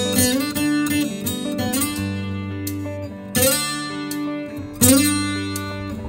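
Viola caipira, the Brazilian ten-string guitar, playing an instrumental phrase of ringing plucked notes, with strummed chords about three and a half and five seconds in.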